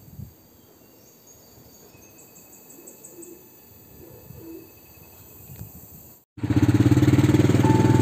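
Quiet with a few faint small noises for about six seconds, then, after a sudden cut, a Honda step-through motorcycle's engine running loud and steady as it rides along.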